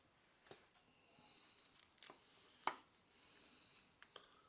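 Faint handling noise from gloved hands working a small 3D-printed plastic prop part, with a few light clicks and taps. The sharpest comes a bit over halfway through as the part is put down on the table.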